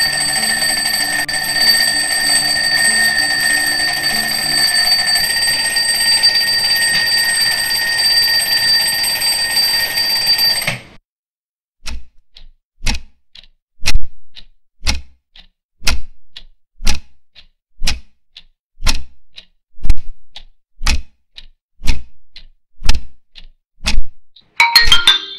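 A steady high-pitched tone over hiss that cuts off suddenly; after a brief silence, an analogue alarm clock ticks about once a second, and near the end the alarm clock starts ringing with a chiming tune.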